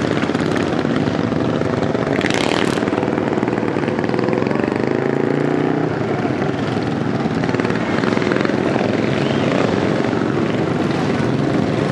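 Racing lawnmower's small engine running loud as the mower pulls away and drives along a dirt track, its pitch rising and falling with the throttle. A brief high-pitched sound comes about two seconds in.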